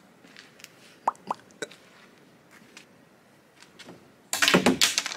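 A few light plastic clicks about a second in. Near the end comes a loud rustling scrape lasting under a second, from a long PVC pipe being bent into an arch and brushing the tarp spread beneath it.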